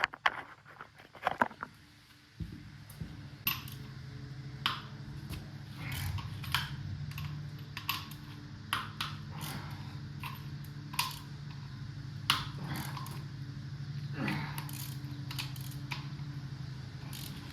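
Scattered metal clinks and taps of hand tools working a loose main bearing cap off a 6.5 turbo diesel block. A steady low hum starts about two and a half seconds in and runs underneath.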